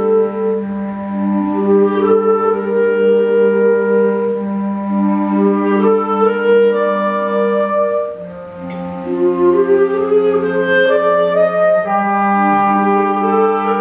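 Concert wind band playing live: clarinets and brass in slow, sustained chords over a held low note. About eight seconds in, the level dips briefly and the bass moves to a lower note before the full chord returns.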